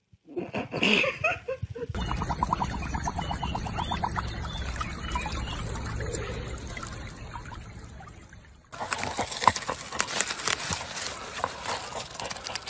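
A brief animal vocal noise, then water trickling and sloshing in a muddy pool. About nine seconds in this gives way to a dog digging in loose soil: fast, dense scratching and scrabbling of paws in dirt.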